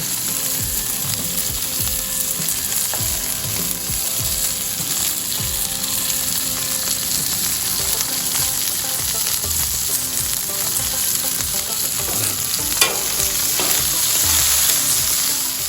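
Green chili peppers in olive oil sizzling and frying on a Blackstone flat-top griddle while they blister, a steady hiss with small pops and scrapes from being turned, and one sharp click near the end.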